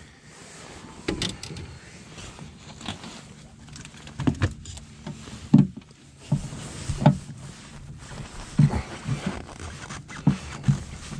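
Irregular hollow thumps and knocks against a fiberglass boat console as a freshly caught crappie is handled and put into a compartment in it, about seven sharp knocks spread through, over a faint low steady hum.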